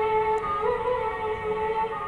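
Music: a held instrumental melody that slides up between notes, with no singing.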